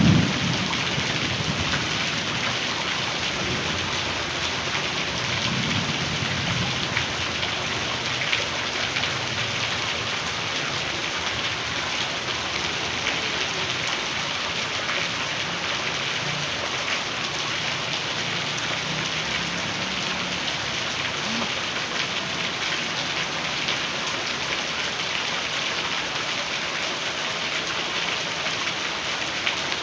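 Heavy rain pouring down steadily, with a sharp thunderclap right at the start and low thunder rumbling a few more times afterwards.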